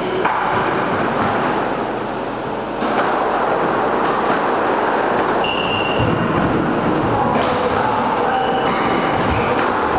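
Squash play on a wooden court: scattered thuds and knocks of ball, racket and footsteps, with brief high sneaker squeaks in the middle and again later. A loud, steady hiss runs under it all and grows louder about three seconds in.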